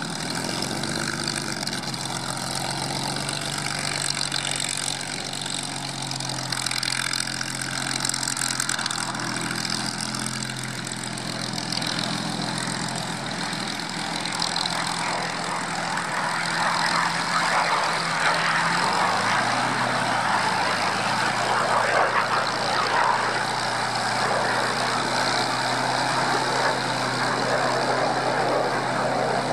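Supermarine Spitfire's Rolls-Royce Merlin V12 engine running steadily at low taxiing power, its propeller turning. The sound grows louder in the second half as the aircraft swings nose-on, and the engine note drops slightly about two-thirds of the way in.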